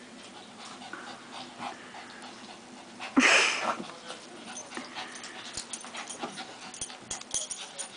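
Two small dogs play-fighting, with one short loud vocal outburst from a dog about three seconds in, then scuffling and small sharp clicks.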